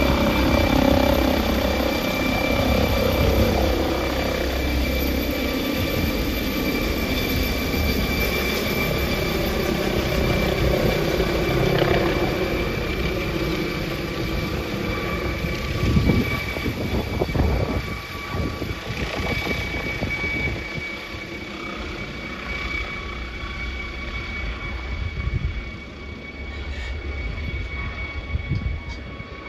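Rescue helicopter's rotor and engines running as it climbs away with a rescuer slung on a long line. The sound is loud with a low throb at first and grows steadily fainter as the helicopter moves off.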